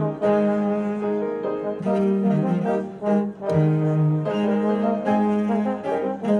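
Brass instruments playing slow, sustained chords in phrases with short breaks between them.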